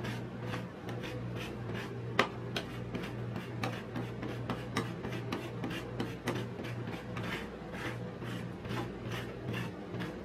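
Metal spatulas scraping and tapping on a frozen steel rolled-ice-cream plate as the crushed corn-biscuit mixture is spread flat: a continuous run of short rasping strokes, with one sharp clack about two seconds in, over a steady low hum.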